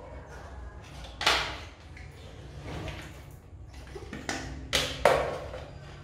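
Hard plastic parts of an Electrolux Ergoclean bagless vacuum cleaner, its dust container and body, clicking and knocking as they are handled: about five sharp clicks, the loudest about a second in and three close together near the end.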